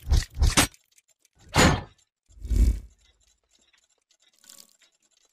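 Sound effects of an animated logo intro: a string of short, heavy mechanical hits, four in the first three seconds and a faint one near the end, with silence between.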